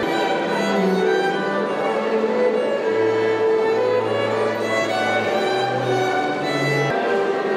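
String trio of two violins and a cello playing classical music, with long held notes in the cello beneath the violins.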